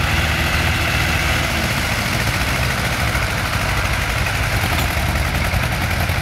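Farm tractor diesel engine running steadily at a constant speed, with no revving.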